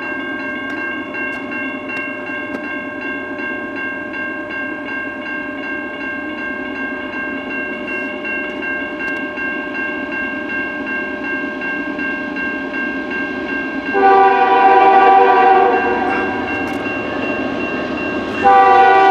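Grade-crossing bell ringing steadily over the low rumble of a slowly approaching freight train. About 14 s in, the lead CN locomotive's air horn blows for about two seconds, then sounds again near the end.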